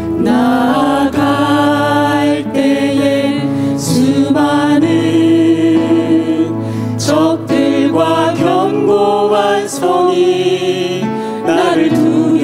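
A small praise team of mixed male and female voices singing a worship song together into microphones, over a steady instrumental accompaniment.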